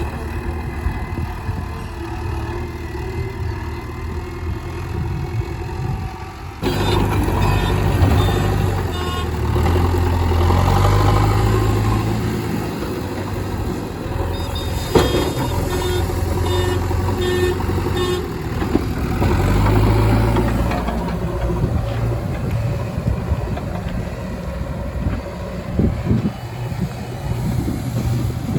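JCB 3DX backhoe loader's diesel engine running steadily, stepping up suddenly in loudness about a quarter of the way in and swelling louder for a few seconds at a time. Near the middle comes a run of short, evenly spaced high beeps.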